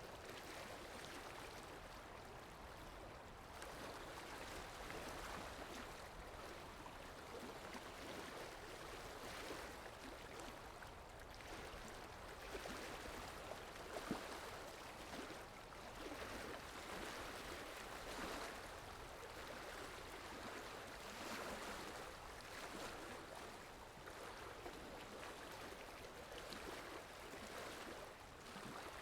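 Steady wash of sea water, swelling and easing every few seconds, with a single faint tick about halfway through.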